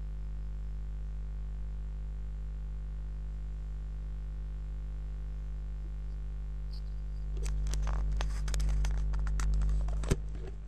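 Steady low electrical hum on the recording. About seven seconds in, a cluster of rapid clicks and rustles lasts about three seconds and ends in one sharp click.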